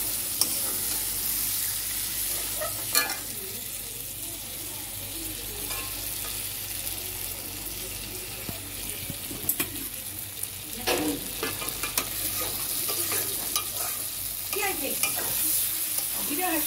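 Potatoes and pointed gourd in a thick spice masala frying in a metal kadai, sizzling steadily as they are slow-fried (kosha). A spatula scrapes and knocks against the pan now and then.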